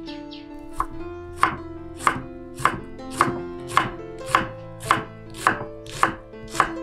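Kitchen knife slicing through an onion and striking a wooden cutting board: steady, even chops about every half second, starting about a second in.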